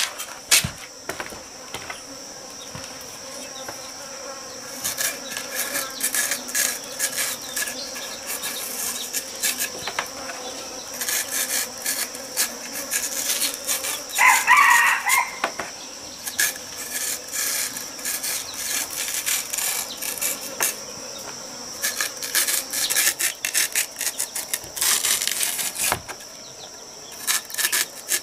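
A cleaver chopping and paring a large purple yam: a run of short knocks and scrapes of the blade through the tuber's skin and flesh, over a steady high buzz of insects. About halfway through, a chicken calls once, loudly and briefly.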